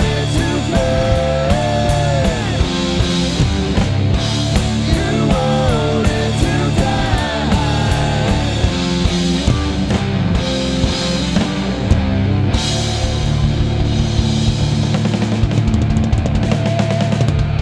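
A rock band playing live: drum kit, bass guitar and electric guitars, with a lead melody that slides and bends in pitch through the first half.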